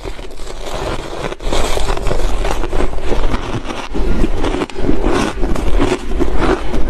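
Shaved ice crunched and chewed in the mouth close to a clip-on microphone: a dense, continuous run of crackly crunches.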